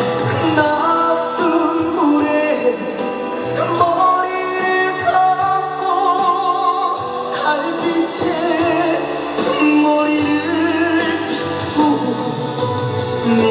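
Instrumental interlude of a slow trot song playing loudly over a PA: a wavering lead melody over sustained keyboard chords and bass, with no words sung.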